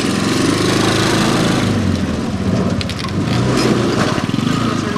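Small vehicle engine running and revving up and down in several swells as it pulls away.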